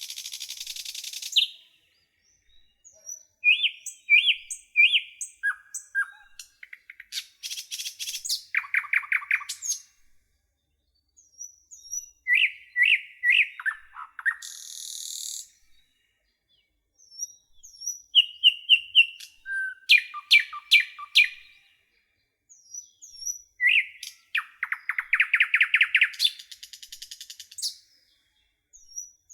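Songbirds singing in short separate phrases: runs of repeated chirps, high down-slurred whistles and buzzy trills, with silent gaps of a second or two between phrases.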